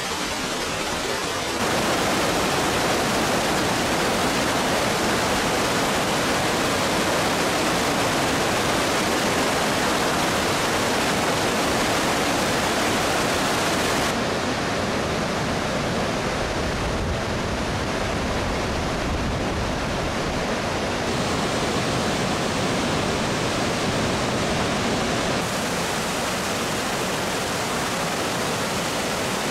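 Rushing water of river cascades and waterfalls, a steady, even rush that changes level and tone abruptly a few times as the shots change.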